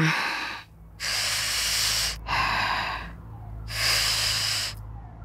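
A woman breathing heavily: four long, noisy breaths, puffing as if worn out by the heat, over a low steady hum.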